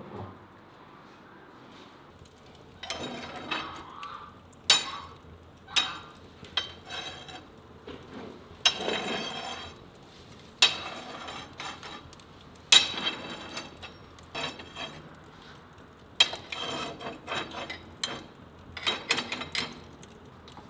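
A string of sharp metallic clanks and scrapes, some ringing briefly, as logs are shifted on the iron grate bars of a wood fire in a brick hearth. They start about three seconds in and come every second or two.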